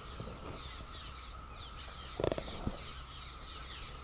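Wild birds chirping in many quick, falling notes over a steady thin hum, with one short harsh call about two seconds in.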